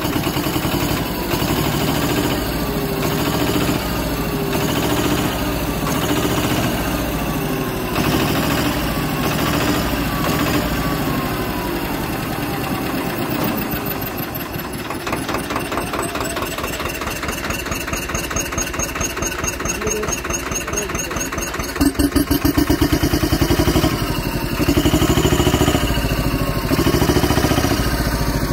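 Swaraj 724 tractor's two-cylinder diesel engine, fitted with an aftermarket turbocharger, running with a steady beat; it grows louder twice near the end.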